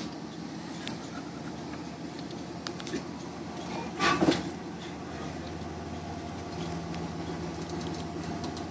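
Steady low background hum with a few faint clicks, and a brief louder sound about four seconds in; a steady low drone sets in about five seconds in.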